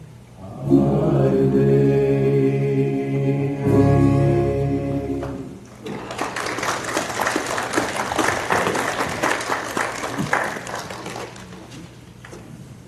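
The closing chord of a gospel song held for about five seconds and cutting off, then a church congregation applauding for about five seconds, dying away near the end.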